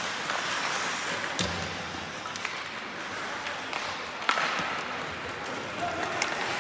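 Ice hockey play in a rink: steady background rink noise broken by two sharp knocks, a heavy one about a second and a half in and a louder one about four seconds in, with a few lighter clicks, the impacts of puck, sticks and bodies against boards and ice.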